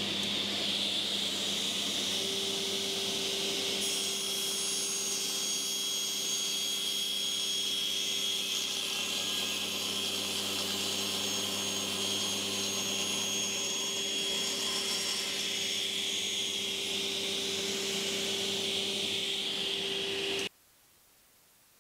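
Panel saw blade spinning at full speed with a steady motor hum and whine. From about four seconds in to about fifteen, the blade cuts the first kerf through the mini crosscut sled's wooden base as it is pushed through, adding a higher hiss. The sound cuts off suddenly near the end.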